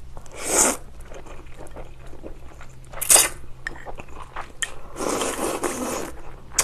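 Close-miked eating of jjolmyeon noodles: a slurp about half a second in, a short one about three seconds in and a longer slurp around five seconds in, with soft chewing clicks between.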